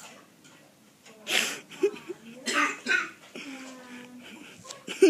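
A person coughing twice, two loud harsh bursts a little over a second apart, with a few fainter catches of breath after them.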